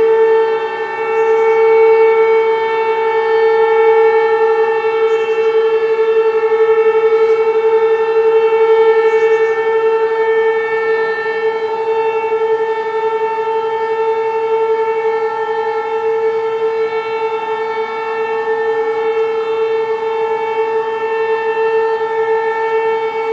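Air-raid siren sounding a long steady wail, held at one pitch with a rich stack of overtones.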